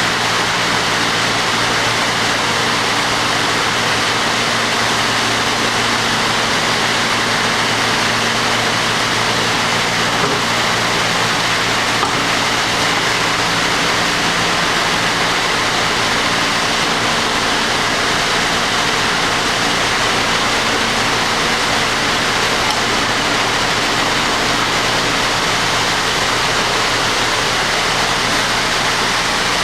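Steady, loud rushing noise of a running foundry furnace and its plant, with a low hum underneath.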